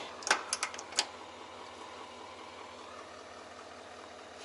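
A few light clicks from the torque wrench being set and handled, the last and sharpest about a second in, then only a quiet steady hiss.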